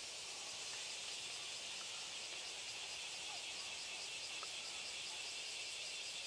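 Steady, high-pitched chorus of insects shrilling.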